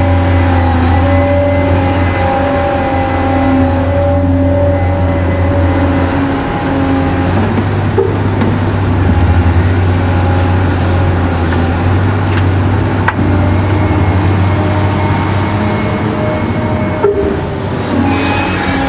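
Excavator's diesel engine running steadily under load, a continuous low drone, with a thin high whine that dips in pitch about eight seconds in and a few faint knocks.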